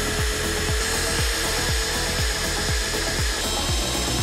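Power drill boring through steel plate, heard under background music with a steady beat of about two thumps a second.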